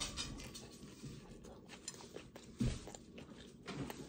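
A person biting into and chewing a soft barbecue slider with coleslaw: wet mouth noises and small clicks. There is a brief low murmur of the voice about two and a half seconds in.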